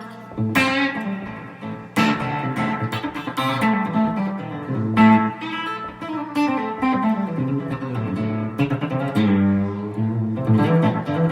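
Electric guitar played through an Octavia octave-fuzz pedal: a funky riff of sharply picked notes with a filthy, belching fuzz tone, several notes bending in pitch around the middle.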